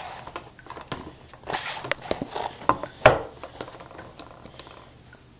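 Handling noises: scattered clicks and knocks, with a sharp knock about three seconds in, as things are moved around and set up.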